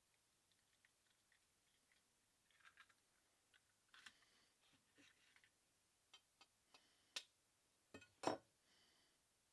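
Faint, scattered taps and clicks of eggs being cracked open and their shells handled, with two sharper cracks near the end.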